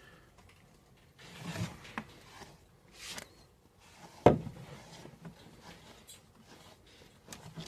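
Short, scratchy strokes of a pet brush being drawn through a cat's fur, with a sharp knock about four seconds in.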